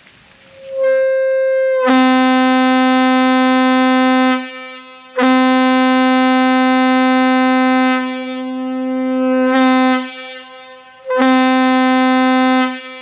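Locomotive air horn blown in three long blasts, each a single steady low note; it comes up softly for about a second before the first full blast.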